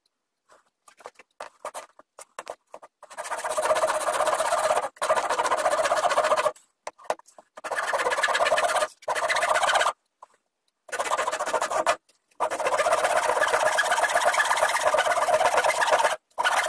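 Japanese handsaw cutting through a thin hardwood board, its blade riding along a wooden sawing guide. A few light scratches and taps come first, then from about three seconds in there are long runs of fast, steady sawing strokes, broken by several short pauses.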